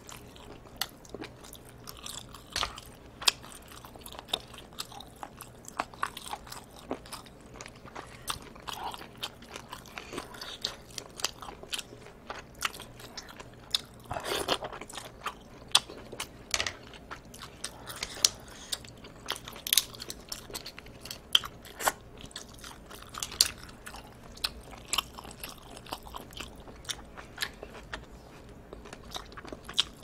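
Close-miked eating sounds: chewing and biting seafood (mussels and squid), with many sharp mouth clicks and smacks and a longer, louder stretch about halfway through.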